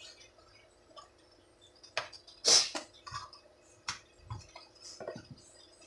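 Kitchen knife cutting fish and knocking against a cutting board: a handful of scattered knocks and clicks, the loudest about two and a half seconds in.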